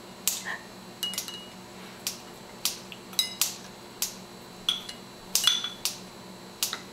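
Wooden chopsticks tapping and clicking irregularly against a ceramic bowl and against each other as a toddler fumbles with them for the first time: about a dozen sharp taps, some with a brief ring, and a quick rattle of several about three seconds in.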